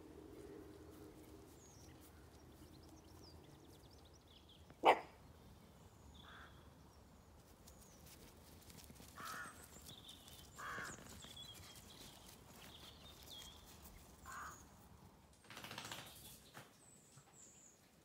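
A sharp, very short sound about five seconds in, then several brief, harsh animal calls spaced one to a few seconds apart, over faint high bird chirps.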